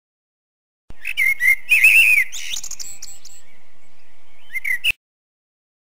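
Small songbirds chirping and whistling in quick, sweeping notes, with one held high note in the middle. The recording starts and cuts off abruptly.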